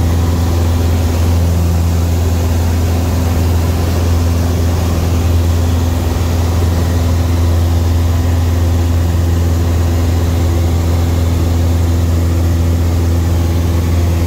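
Piper Tri-Pacer's four-cylinder Lycoming engine and propeller droning steadily in flight, heard from inside the cabin: a loud, deep, constant hum with no change in pitch.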